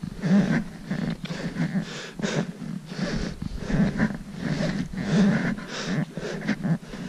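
A hiker's breathing and footsteps in packed snow, repeating in a steady rhythm about once a second.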